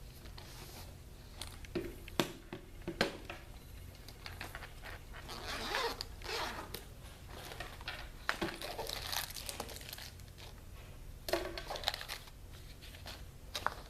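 A Chromebook and its case being cleaned by hand: rustling, swishing wipe strokes, with sharp clicks and knocks as the device and case are handled.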